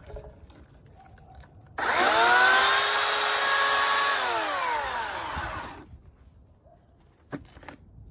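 Homelite 14-inch 9-amp corded electric chainsaw motor starting up with a whine, running at steady speed for about two seconds, then winding down in pitch as it coasts to a stop. A couple of short knocks follow near the end.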